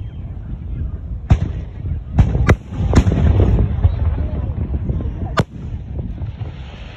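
Aerial fireworks going off: five sharp bangs, three of them close together between about two and three seconds in, over a steady low rumble.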